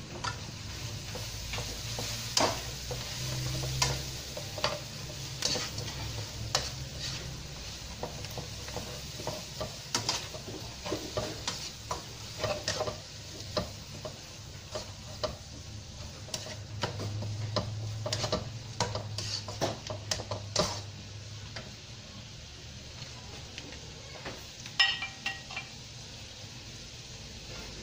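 Pea shoots and prawns stir-fried in a non-stick wok: a spatula scrapes and clacks against the pan over a steady sizzle. The strokes come thick through the middle and thin out toward the end, with one louder knock near the end.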